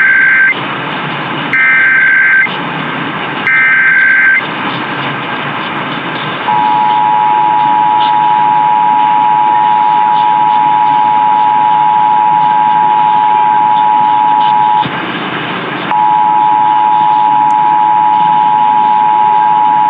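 Emergency Alert System SAME header, three short bursts of shrill digital data warble about a second and a half to two seconds apart, followed by the EAS two-tone attention signal (853 and 960 Hz together), a steady harsh dual tone that drops out briefly about 15 seconds in and then resumes. All of it is received over AM broadcast radio, with steady static hiss underneath and a muffled, narrow sound.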